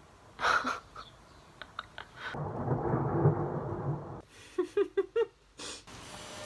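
A roll of thunder from a nearby storm: a low rumble lasting about two seconds, starting a little over two seconds in.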